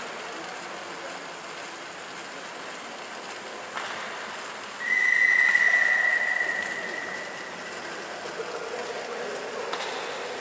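Bicycle riding on training rollers, a steady hum of tyres and rollers echoing in a large hall. About five seconds in, a loud, steady high whistle tone sounds and fades away over a couple of seconds.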